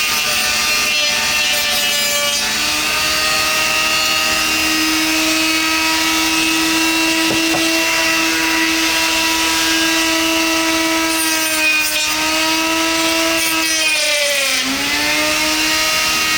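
A handheld rotary tool runs a cutting wheel through a 3D-printed PLA part, with a steady high motor whine over a rough cutting noise. Near the end the pitch sags briefly as the wheel bogs under load, then it recovers.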